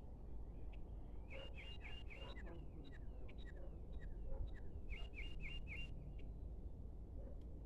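A small songbird singing: short runs of four or five quick falling chirps, heard twice, with a few single chirps between, over a steady low rumble.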